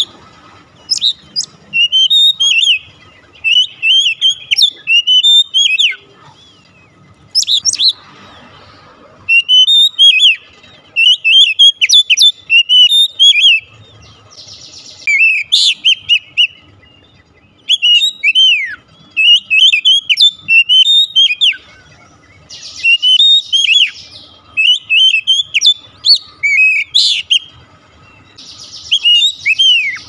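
Oriental magpie-robin singing in bursts of a few seconds: quick runs of clear, sliding whistled notes, with a few harsh rasping notes mixed in.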